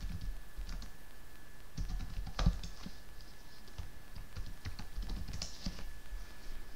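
Typing on a laptop keyboard: irregular key clicks, the sharpest about two and a half seconds in and a quick run of them around five and a half seconds in.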